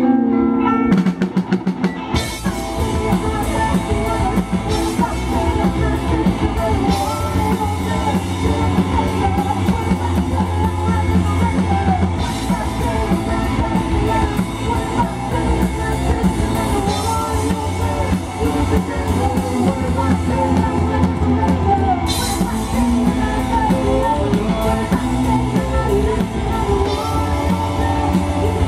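Live rock band playing amplified: electric guitars, bass and drum kit with a lead vocal. A few guitar strums open it, and the full band with drums comes in about two seconds in.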